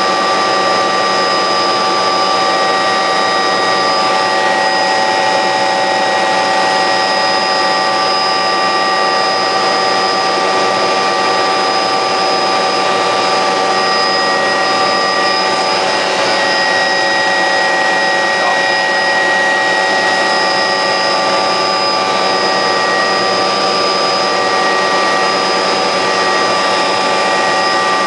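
MD 500 helicopter in cruise flight heard from inside the cabin: the Allison 250 turboshaft engine's steady whine, with several high pitched tones held level, over a loud constant rush of rotor and airframe noise.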